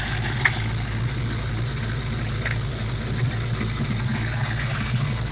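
Small-block Ford 351 V8 idling steadily, with a constant hiss over the low engine hum. The owner attributes the hiss to an intake vacuum leak that is not fully gone after retightening the loose intake bolts.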